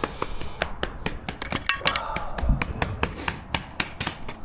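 Rapid, irregular sharp knocks of concrete stamp mats being tamped into fresh concrete, several a second, with a brief ringing clink about a second and a half in and a low thud midway.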